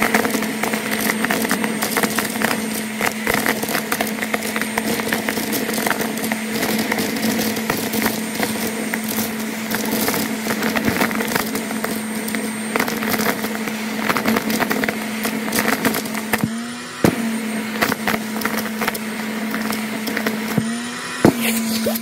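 Vacuum cleaner running with a steady motor hum while its hose nozzle sucks up plastic beads and sequins from a shag rug, the beads clicking and rattling as they go up the hose. Twice in the later part the motor's pitch dips and climbs back.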